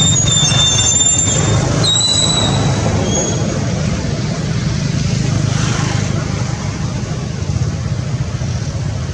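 Steady low rumble of a motor vehicle running, with thin high squeals during the first three seconds.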